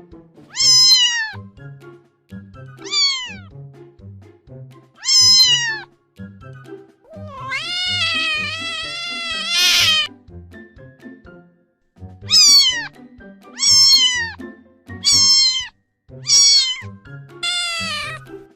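Domestic cat meowing again and again: about nine high meows that fall in pitch, with one long, wavering meow in the middle. Soft background music plays underneath.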